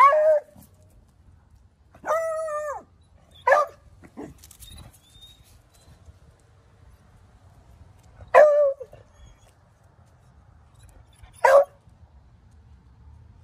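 Beagle barking: about five single barks spaced irregularly a few seconds apart, the second one drawn out for most of a second.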